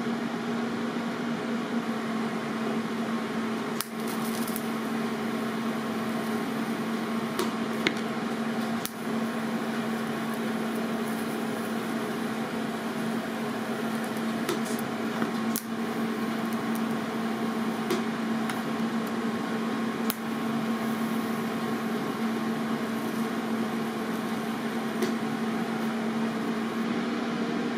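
TIG welding arc on aluminium, buzzing steadily with a few brief dips.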